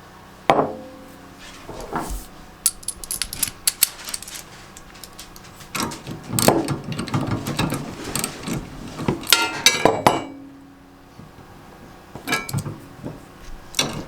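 Metal snow-plow parts and hand tools clinking and knocking during assembly, in irregular clusters of sharp clicks, with a quieter pause near the end.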